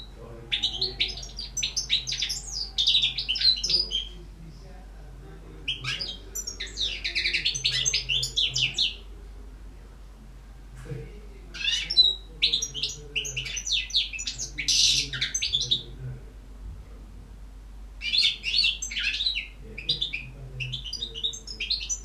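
Caged European goldfinch singing: four long phrases of rapid, tinkling twitters and trills, each a few seconds long, with pauses of a second or two between them.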